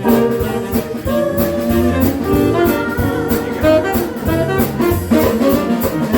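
Small swing jazz band playing an instrumental passage: tenor saxophone over piano, bass and drums with steady cymbal strokes.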